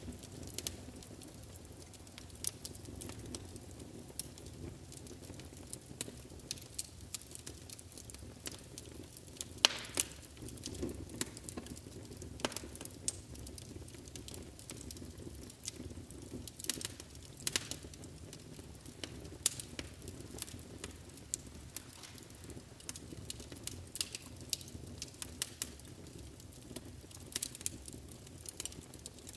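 Wood fire burning in a fireplace: irregular sharp crackles and pops over a low steady rush, with one louder pop about ten seconds in.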